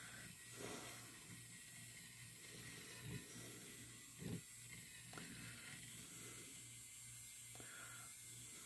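Small battery-powered handheld resin mixer running with a steady, faint low hum as it stirs acrylic paint in a cup, keeping its speed without slowing down in the paint. A few faint knocks come through, the clearest a little past the middle.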